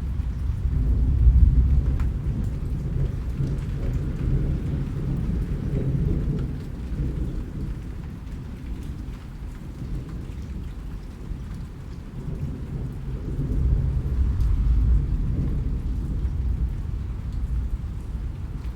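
Rain falling steadily under a deep rolling rumble of thunder. The rumble swells about a second in and again around fourteen seconds, and the rain is a fainter hiss beneath it.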